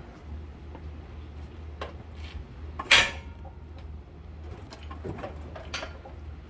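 Metallic clanks and clinks from a hoist chain and the engine shifting as an engine is lifted out of a car's engine bay, with one loud ringing clank just before three seconds in.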